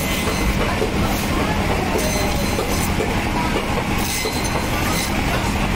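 Electric band saw (bone-cutting saw) running with a steady hum as its blade cuts through tuna flesh and bone, with several brief higher rasps as the blade bites.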